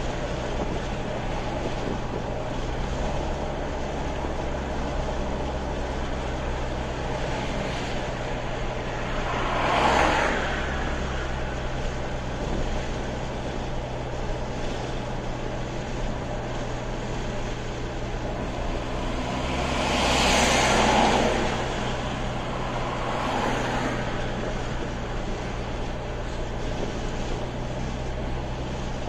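Steady road and engine noise inside a car cruising on a highway: a low drone with tyre hiss. Twice, about ten and twenty seconds in, a louder whoosh rises and fades as vehicles pass.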